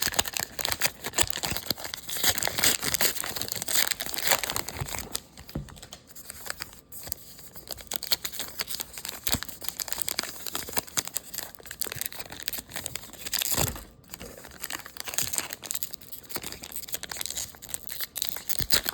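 Plastic wrapping on trading card packs being torn open and crinkled by hand, a dense crackling that comes in irregular bursts.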